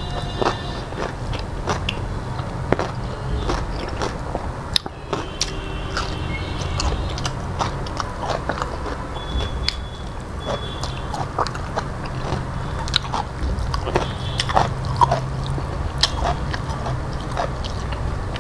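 Close-up eating sounds of a man eating rice and curry by hand: chewing with many wet smacks and clicks of the lips and tongue, over a low steady hum.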